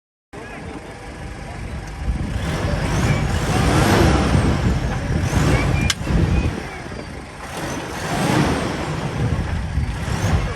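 Off-road 4x4's engine revving hard under load, swelling and easing twice with rising and falling pitch. A sharp click about six seconds in.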